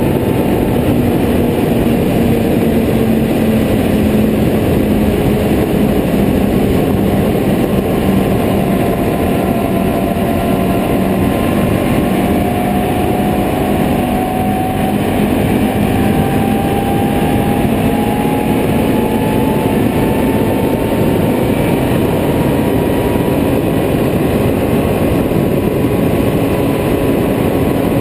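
Can-Am Renegade 800R ATV's V-twin engine running at road speed under a steady rush of wind and road noise. Its note climbs slowly in pitch through the middle stretch as the quad gathers speed.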